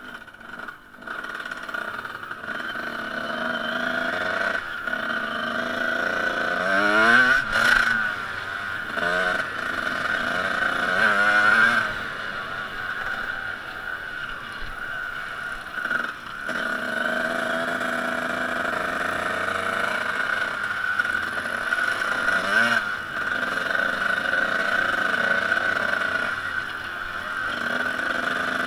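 Small off-road motorcycle engine running, heard close from a camera mounted on the bike, its revs rising and falling as it rides the track, with sharper climbs in revs about seven, eleven and twenty-three seconds in.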